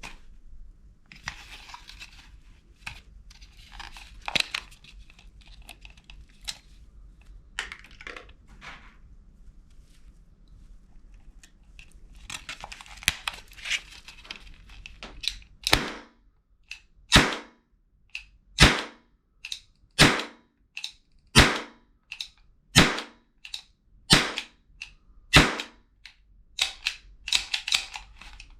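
Toy mini revolver cap gun: small clicks and rattles of handling, then about eight sharp cap pops fired one after another, roughly one every 1.4 seconds, from just past halfway. A few more small clicks follow near the end.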